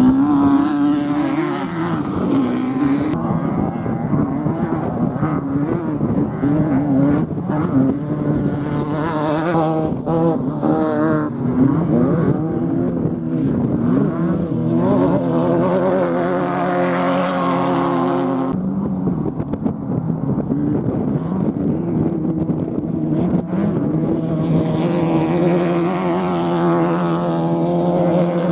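Desert off-road race vehicles' engines running hard, one after another, their pitch rising and falling as they accelerate. The sound changes abruptly a few times.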